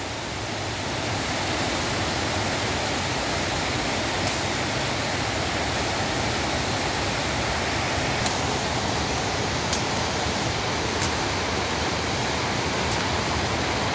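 Rain-swollen forest river rushing over rocks: a steady noise of white water.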